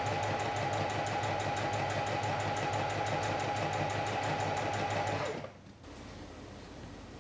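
Singer SN1851 electric sewing machine stitching fabric at a steady speed: a fast, even needle rattle over a steady motor whine. It stops a little over five seconds in.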